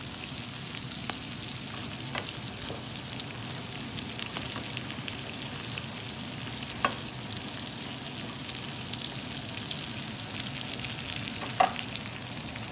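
Shell-on shrimp frying in garlic butter and oil in a skillet, a steady sizzle with small crackling pops as a slotted spatula stirs them, nearly done. Two sharper knocks of the spatula against the pan come about halfway through and near the end.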